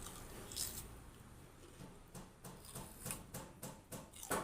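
Faint crunching of raw vegetables being chewed: a run of small, crisp clicks that quickens to about three or four a second, the loudest near the end.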